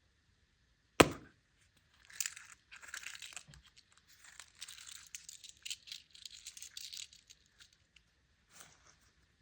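A single sharp snap, then about five seconds of crinkling and tearing of the thin plastic and foil wrapping of a Kinder Joy surprise egg being opened by hand.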